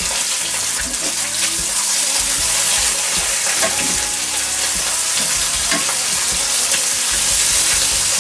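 Thick-cut smoked bacon sizzling as it fries: a steady, dense hiss with a few faint ticks of spattering fat.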